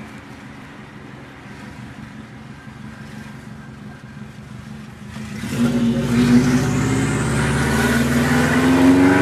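Subaru WRX turbocharged flat-four engine and exhaust running quietly, then about five and a half seconds in getting much louder as the engine speed climbs steadily, with a high whine rising alongside it.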